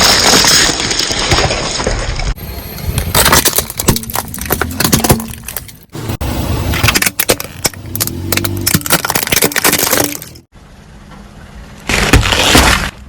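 A car tyre rolling over and crushing objects such as soda bottles, with dense cracking, crunching and breaking sounds, in several short segments that start and stop abruptly.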